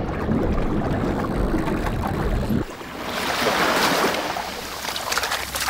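A low rumble cuts off abruptly about two and a half seconds in. Then small waves wash onto a sandy beach: a rushing hiss that swells and falls back.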